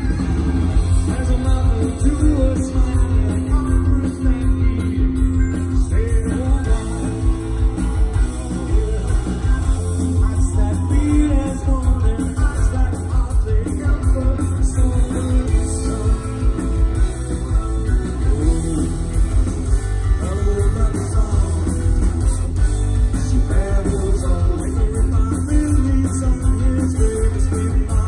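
Live punk rock band playing loud through the PA, with distorted electric guitars, bass, drums and a male singer's vocals, heard from the crowd.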